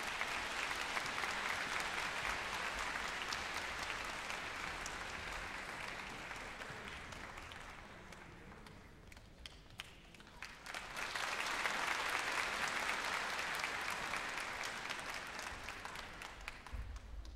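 Audience applauding in a large concert hall, in two waves: the first fades away over the first nine seconds or so, then the clapping swells up again about eleven seconds in and tapers off near the end.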